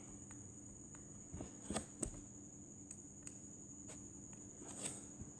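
A handful of faint, sharp, irregular clicks of a stylus tapping and writing on a tablet screen, over a low steady electrical hum.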